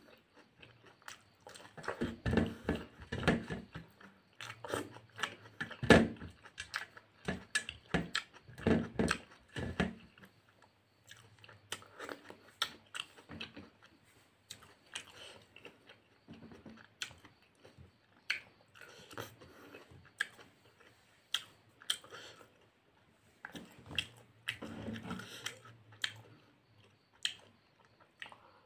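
Close-miked chewing of a mouthful of food eaten by hand, with wet mouth clicks and bites coming in bursts separated by short pauses; the busiest chewing falls in the first third and again near the end.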